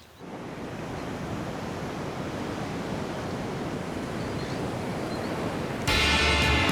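Ocean surf washing in, a steady rush of wave noise that rises in just after the start. Loud music comes in near the end.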